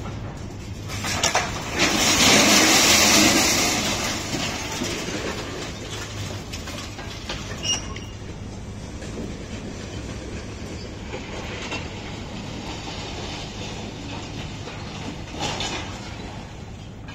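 Orange-peel crane grab working in a hold of steel scrap: loose scrap metal grinds and clatters loudly for about two seconds near the start, then a steady low machinery hum goes on with a few sharp metal clanks.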